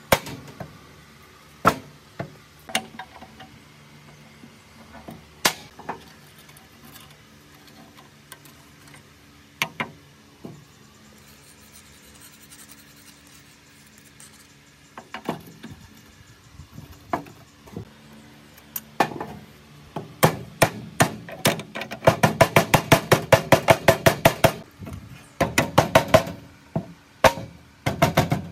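Hand hammer striking steel as the cut-off saw's arm is tapped onto its hinge and a pivot pin is driven through the hinge. Single sharp blows come a few seconds apart at first, then a rapid run of about five blows a second in the last third.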